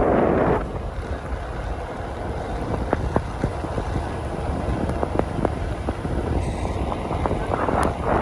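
Wind buffeting the microphone: a steady low rumble with scattered light clicks, and louder gusts at the start and again near the end.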